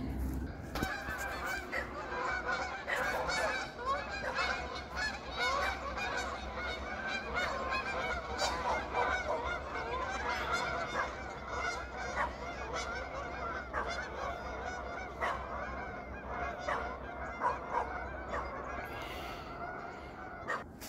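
A flock of geese flying over, honking constantly with many overlapping calls, which thin out near the end.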